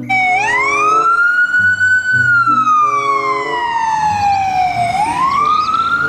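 Ambulance siren in a slow wail: the pitch rises over about two seconds, falls slowly for about three, then starts rising again near the end.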